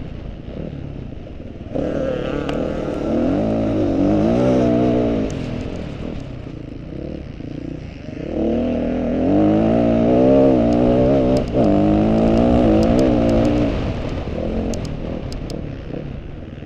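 Off-road motorcycle engine running under changing throttle, its pitch rising and falling again and again as it rides, loudest in the second half.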